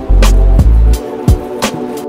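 Hip-hop instrumental music: deep bass under steady pitched notes, with a regular beat of sharp drum hits about three times a second.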